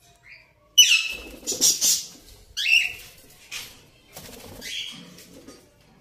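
Indian ringneck parakeets giving loud, harsh screeches that fall in pitch, three of them starting about a second in. Between the calls come noisy bursts of wing flapping.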